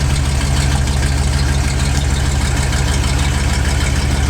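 An engine idling steadily, loud and close, with a deep, even hum that does not change.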